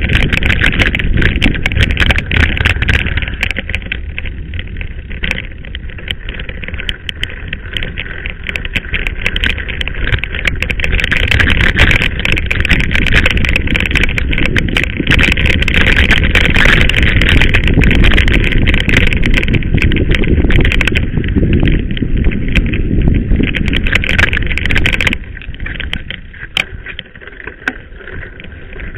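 Mountain bike ridden over a rough dirt track, heard through its mounted camera: a constant dense rattle and knocking of the bike and camera mount over the bumps, with wind rumble on the microphone. It gets quieter near the end as the bumps ease.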